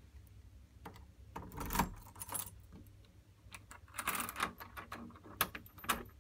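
A bunch of keys jangling, with a few sharp clicks, in irregular bursts: about one and a half to two and a half seconds in, again around four seconds, then single clicks near the end.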